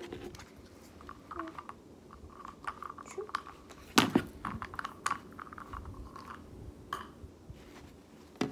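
Toys and a plastic remote handled on a tabletop: light clicks, taps and rustling, with one sharp knock about four seconds in.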